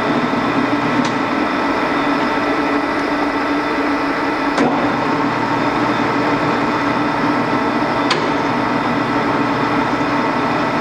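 Lagun FT-5 vertical milling machine running under power, a steady mechanical hum with several steady tones. Three faint clicks come at even spacing, about a second in, near the middle and about eight seconds in.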